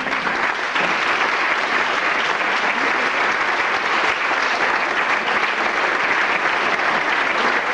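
Audience applauding steadily at the end of a dance number.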